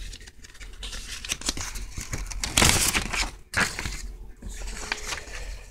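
A paper envelope rustling and crinkling as it is handled and the check inside is pulled out, with scattered small clicks and one louder burst of rustling about two and a half seconds in.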